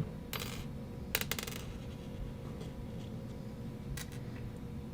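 Small metal and plastic parts of a paintball Cyclone feeder's ratchet assembly clicking and clinking as they are handled and a pin is pushed out. There are a few sharp clicks about a third of a second in, a quick cluster just after a second, and one more click about four seconds in.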